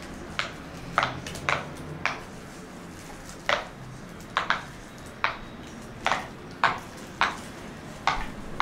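About a dozen sharp, irregular clicks and taps of plastic fidget toys and their packaging being handled and opened.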